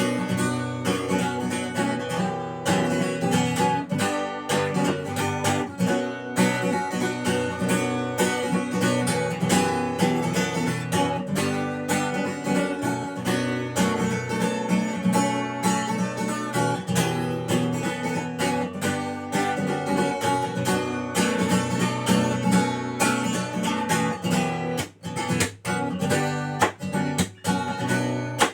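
Instrumental break of a song: acoustic guitar strummed steadily with no singing, with a few brief stops in the strumming near the end.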